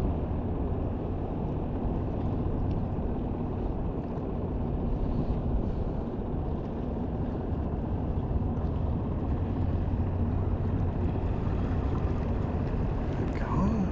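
Small fishing skiff's outboard motor running steadily, a low even drone with water and air noise over it.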